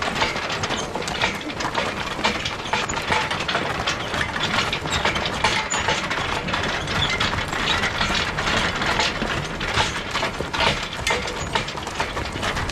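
An excavator track being dragged by a team of draft horses, clattering and scraping steadily as a dense, irregular run of clicks and knocks.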